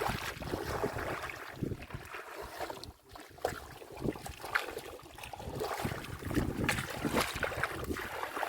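Shallow muddy water sloshing and splashing irregularly as hands work through it, with wind buffeting the microphone.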